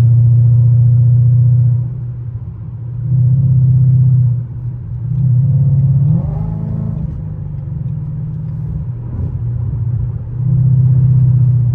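Ford Mustang GT's 5.0 V8 exhaust drone heard from inside the cabin at highway speed: a loud, steady low hum that fades and comes back several times.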